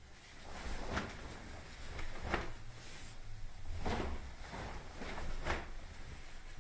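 Karate gis snapping and bare feet thudding on the floor during a kata's strikes and kicks: a handful of sharp snaps and thumps at uneven intervals, the loudest about two seconds in and around four seconds in.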